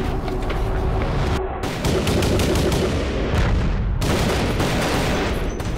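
Rapid, sustained gunfire from several firearms in a shootout, shot after shot with no let-up.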